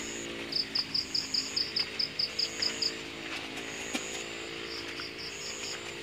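Night insects, crickets, chirping: trains of high pulses, about five a second, alternate with stretches of a steady high buzz. A steady low drone of several tones runs beneath them.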